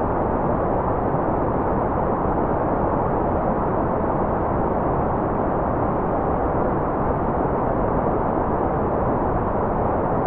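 Steady, unbroken white noise at an even level. Its weight lies in the low and middle range, giving a dull rush with no high hiss.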